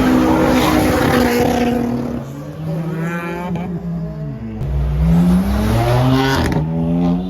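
Car engines revving, the pitch rising and falling several times with a sharp climb about three seconds in, over a noisy hiss in the first couple of seconds.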